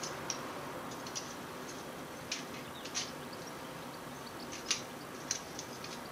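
Light, irregular metallic clicks from a feeler gauge and piston ring being handled while the ring's end gap is measured, about eight in all, the sharpest near the end, over a steady hiss.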